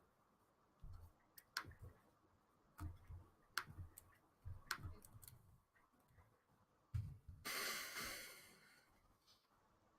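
Sparse computer mouse clicks and key taps, with one breath out, about a second and a half long, a little past two-thirds of the way in.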